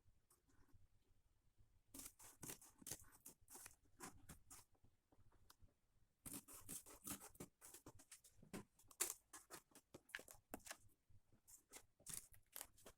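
Faint, irregular clicks and crackles in short clusters, separated by near silence.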